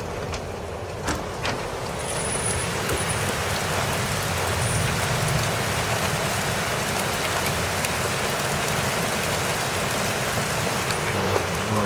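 Heavy rain and strong wind during a severe thunderstorm, a steady rushing noise that swells about two seconds in and holds.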